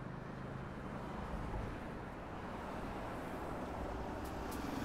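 Road traffic noise heard from a bicycle in the street: a steady rush of vehicles and tyres, with an engine hum coming up near the end and a few brief high clicks.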